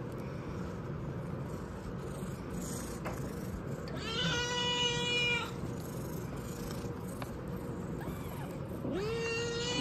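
Kitten mewing: two long cries held at a level pitch, one about four seconds in lasting over a second, and another starting near the end.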